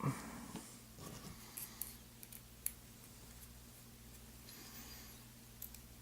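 Faint, scattered small clicks and light handling noises from tiny lock parts (driver pins and springs taken out of the cylinder) being moved about on a work surface, over a low steady hum.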